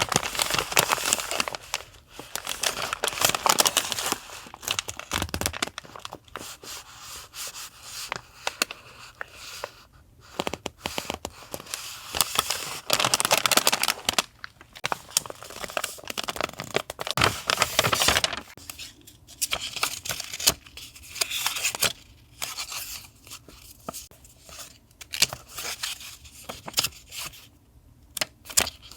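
Paper and packaging handled close up: crinkling, rustling and tearing that come and go, with the loudest stretches near the start, about halfway through and around two-thirds of the way in, and quieter scratches and taps between them.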